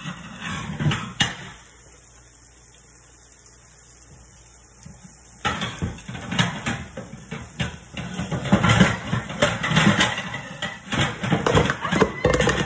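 Kitchen clatter: a run of knocks and clinks of dishes being taken down from a cupboard, starting about five seconds in after a quiet stretch.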